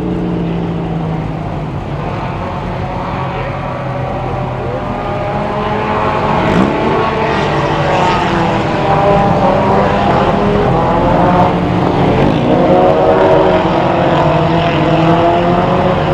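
Four-cylinder mini stock race cars running at racing speed on the oval, several engines at once rising and falling in pitch through the turns. They grow louder from about halfway through as the field comes closer.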